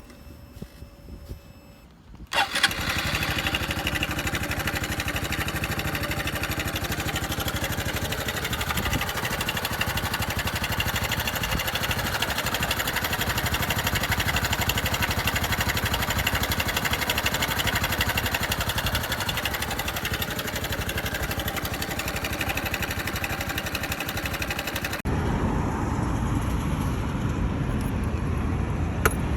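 Honda Super Cub 110 (JA44) air-cooled single-cylinder engine starting about two seconds in, then running steadily. Near the end the sound changes abruptly to a deeper engine sound.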